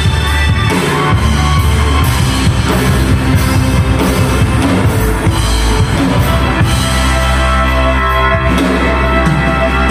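Live rock band playing loud and steady: drum kit, electric guitar and bass guitar together.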